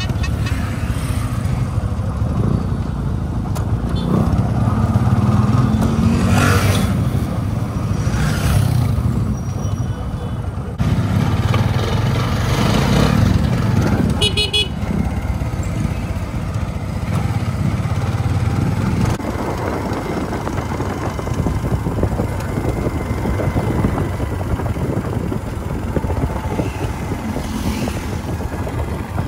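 Motorcycle tricycle riding through traffic: engine running with road and wind noise, and a short vehicle horn toot about halfway through.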